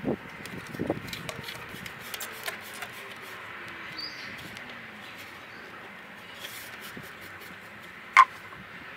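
Rubber glazing seal being pulled out of an aluminium window sash and the glazing beads pressed into place: faint scattered clicks and rubbing over a steady background hiss, with one sharp click about eight seconds in.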